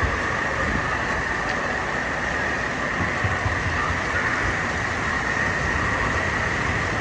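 Steady, even rush of running and splashing water at a water park, with no breaks or distinct events.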